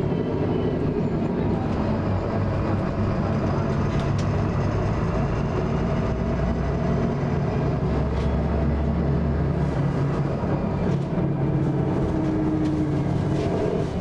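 Inside a VDL Commander bus on the move: steady engine and drivetrain noise, with the grinding from the rear at speed that the uploader points out. A deeper low rumble swells for a couple of seconds past the middle.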